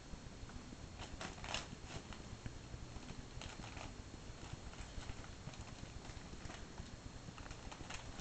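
Faint rustling of a hand rubbing a ferret's fur against a quilt, with a few brief scratchy rustles.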